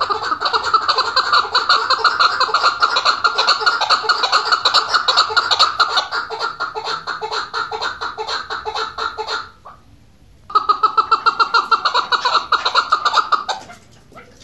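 Chukar partridge calling: a long run of rapid chattering notes, broken by a pause of about a second past the middle, then a shorter run that fades near the end.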